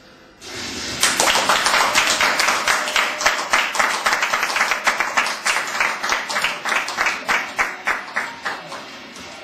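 Many hands clapping in unison in a steady rhythm, about four claps a second, setting in about a second in and fading out near the end.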